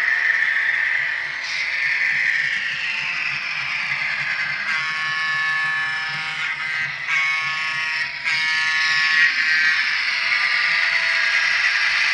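A Broadway Limited Paragon N scale SW7 diesel switcher's onboard sound playing through its tiny speaker: a steady engine sound, with the horn blowing about halfway through in three blasts, the first the longest.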